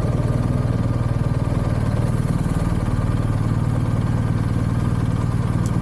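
Motorcycle engine running steadily, with a fast, even beat of firing pulses.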